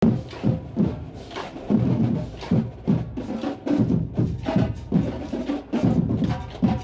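College marching band drumline playing a cadence, a run of snare and bass drum strokes in a steady rhythm.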